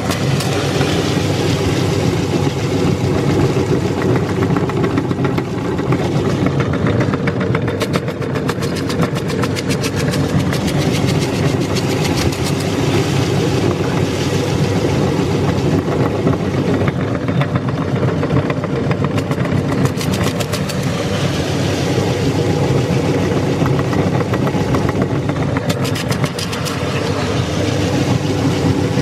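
Motor-driven meat grinder running steadily as it grinds long candy, with a fast, dense rattle over a steady motor hum.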